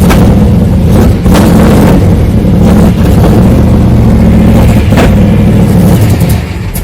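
1995 Camaro Z28's LT1 V8 running loud and steady, on an engine the owner reports misfiring and bogging; the sound falls away near the end.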